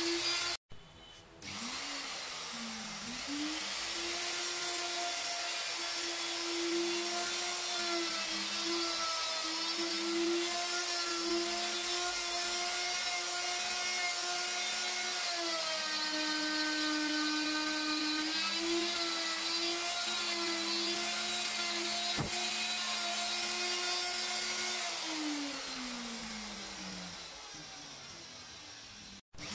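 Handheld electric router running at high speed, cutting into MDF, with a steady high whine. The whine drops out briefly about a second in, then winds back up to speed. It dips in pitch for a few seconds midway, and near the end it winds down with a falling whine.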